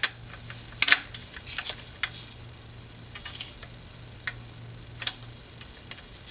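Torque wrench clicking while tightening the plenum (upper intake manifold) bolts of a GM 3800 Series II V6: scattered sharp metallic clicks, some in small clusters, the loudest about a second in.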